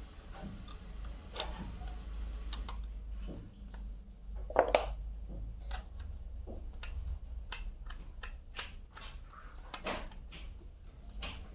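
Plastic parts of a computer mouse being handled and fitted back together: a run of small irregular clicks and taps, with a sharper double click about four and a half seconds in, over a low steady hum.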